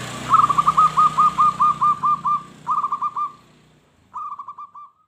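Zebra dove (perkutut) singing: three runs of quick, arched cooing notes, about five a second, the first run about two seconds long and the other two shorter. A low background rumble fades out partway through.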